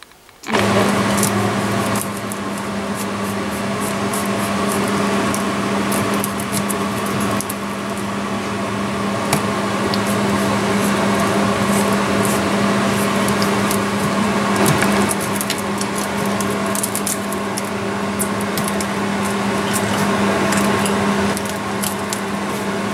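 A kitchen knife chopping through hard, set almond nougat on a granite countertop, making irregular sharp cracks and clicks. Under it runs a steady, loud mechanical hum that starts abruptly about half a second in.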